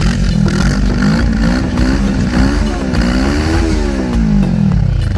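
Cruiser motorcycle engine revved up and down by hand through its twin exhausts, the pitch climbing and falling about twice, then dropping back to a steady idle near the end.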